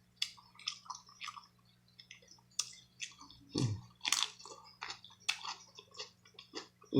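A person chewing and eating food close to the microphone: a string of wet mouth smacks and clicks, with two brief low hums of the voice, about three and a half seconds in and at the end.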